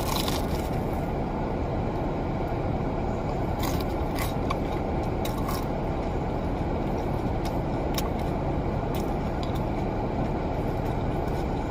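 Steady low rumble of a car, heard from inside it, with a few faint short clicks scattered through.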